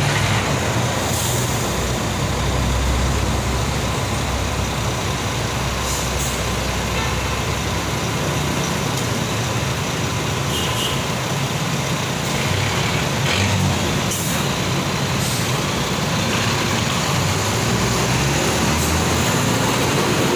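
Road traffic: engines of trucks, cars and motorcycles running in slow, congested traffic, a steady low rumble with a few short high hisses.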